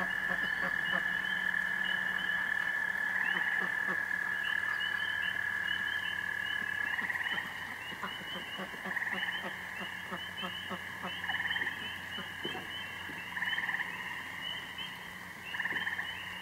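A chorus of frogs calling at night. A long steady trill stops about seven seconds in, and shorter trills then repeat every couple of seconds over a constant high chirping.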